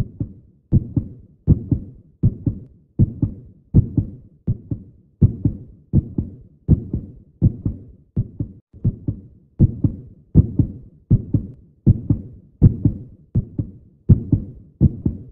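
Heartbeat sound effect: a steady double thump (lub-dub) about 80 times a minute, deep and regular throughout.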